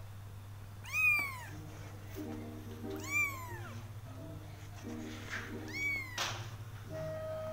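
Ten-day-old kitten meowing: three thin, high meows about two to three seconds apart, each rising and then falling in pitch.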